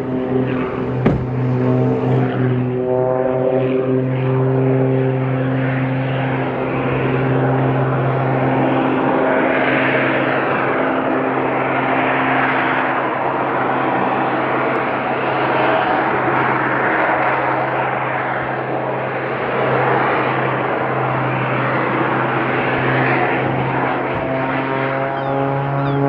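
Propeller aircraft engine droning steadily overhead, with a rushing noise that swells and eases every few seconds.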